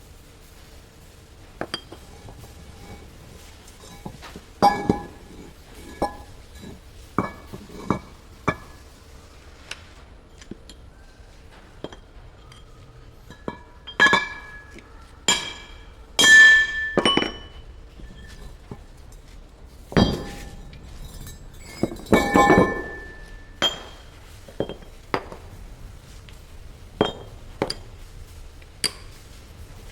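Irregular metallic clinks and clanks, some fifteen strikes spread unevenly, each leaving a short ringing tone, from steel parts and tools being handled and knocked during bulldozer disassembly. The loudest strikes come about halfway through, and there is a quick cluster a little later.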